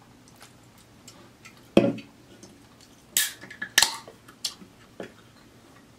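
Aluminium can of Polar seltzer handled and opened: a knock just under two seconds in, then the tab cracking with short fizzing hisses a little after three and near four seconds in, followed by a couple of small clicks.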